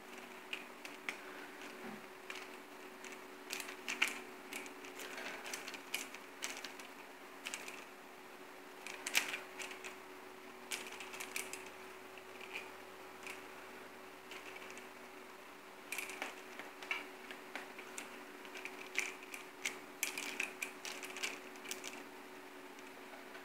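Toy pinwheel clicking and rattling as a cat bites and bats at it: irregular sharp clicks in clusters with short pauses, over a faint steady hum.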